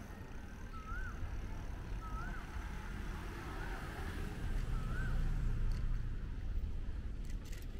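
Low city street traffic rumble that swells as a motor vehicle passes about four to six seconds in. A short rising-and-falling chirp repeats about once a second through the first five seconds, then stops.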